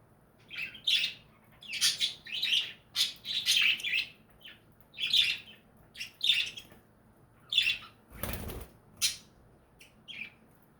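Budgerigars chirping in a rapid run of short, high calls. About eight seconds in, a brief rushing flutter that sounds like wings.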